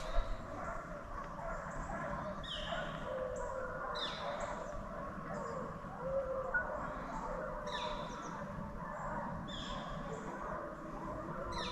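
Distant deer hounds baying on a trail, with short, repeated, falling bird chirps over them.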